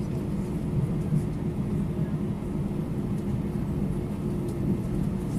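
Airbus A320 jet engines at low taxi thrust, heard inside the passenger cabin: a steady hum with low droning tones and faint ticks.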